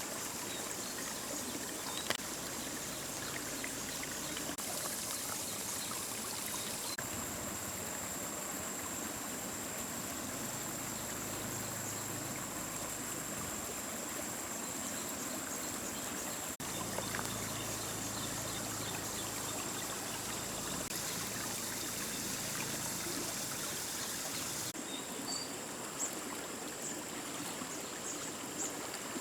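Steady rush of flowing stream water, with a thin, steady high-pitched tone above it and a sharp click about two seconds in.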